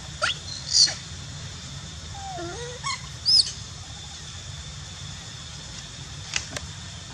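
Macaque monkeys calling: two short, loud, high-pitched squeals, one just under a second in and one about three seconds in, with a lower wavering call between them. Near the end come a couple of faint clicks.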